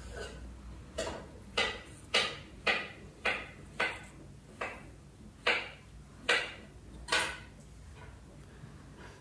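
Plastic queen roller cage and its plug being handled and fitted together, giving a series of about ten sharp clicks, one every half second to second, that stop about seven seconds in.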